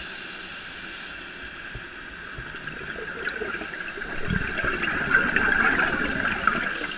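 Scuba diver's exhaled bubbles gurgling from a regulator, heard underwater over a steady hiss. The bubbling builds from about three seconds in and is loudest near the end.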